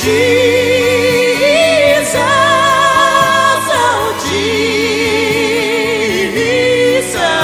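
Gospel hymn sung with a strong vibrato on long held notes over a steady instrumental accompaniment.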